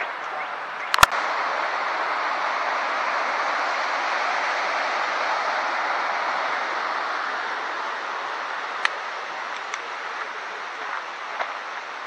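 Steady rush of a creek's flowing water, swelling about a second in and easing off near the end, with one sharp click about a second in.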